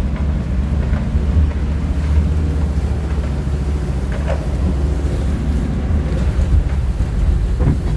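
Mercedes T1 van's engine running steadily with a deep drone, heard from inside the cab while the van drives through muddy puddles. Mud and water splash against the body and windscreen.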